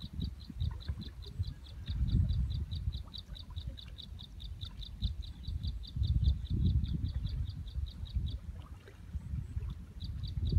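Rapid, even high chirping, about four chirps a second, pausing briefly near the end and then starting again. Under it, gusts of wind rumble on the microphone.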